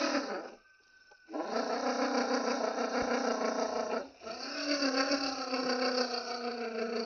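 RC rock crawler's electric motor and gears whining under throttle, the pitch sagging and rising as it works over the rocks. The throttle is cut and reapplied twice: briefly about half a second in, and for a moment about four seconds in.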